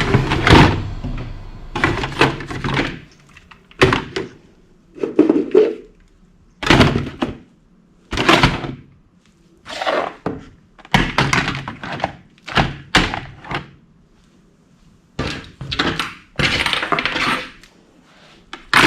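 Plastic toy weapons being handled and set down: a dozen or so separate knocks and clatters, each lasting under a second, with short quiet gaps between.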